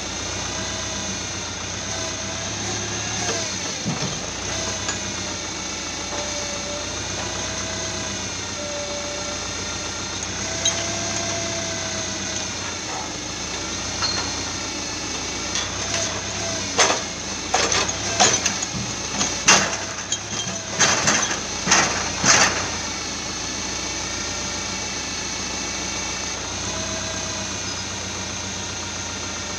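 Tractor engine running steadily while driving a hydraulic log-loader crane, its pitch wavering up and down as the crane slews and lifts. About halfway through comes a string of sharp wooden knocks as logs in the grapple are set down and bump against the log pile.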